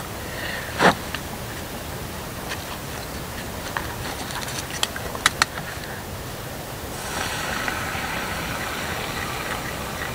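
Campfire crackling: a few sharp pops over a steady hiss, with a brighter hiss coming in about seven seconds in.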